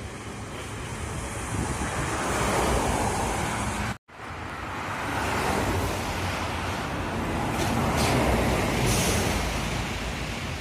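Highway traffic passing at speed: the rush of tyres and wind swells and fades about three times as vehicles go by one after another. The sound cuts out completely for an instant about four seconds in.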